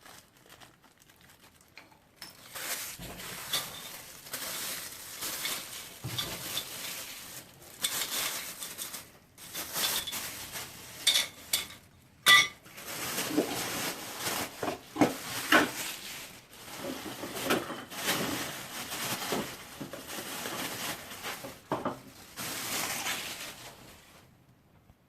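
Unpacking noises: packaging rustling and scraping in irregular bursts, with sharp clinks and knocks of hard parts being handled, the loudest about halfway.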